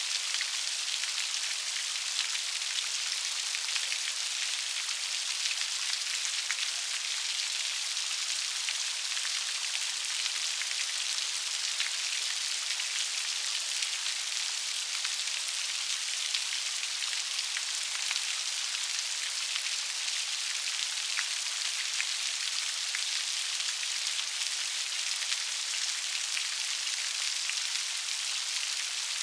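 Steady rainfall, a dense even hiss of many small drops ticking on a surface.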